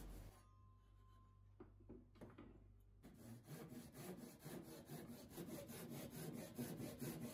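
Faint back-and-forth rasp of a hand saw cutting through a small wooden stick about 2 cm square, starting about three seconds in after a near-silent pause.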